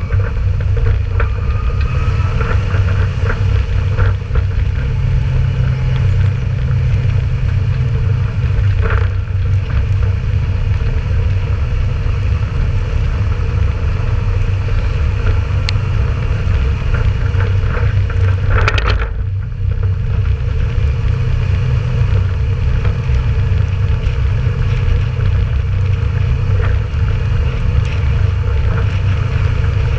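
Ford 7000 tractor's four-cylinder turbo diesel engine running steadily under way, towing an empty trailer, heard from the trailer as a constant low rumble mixed with the trailer's road noise. There is one brief loud clatter just past the middle.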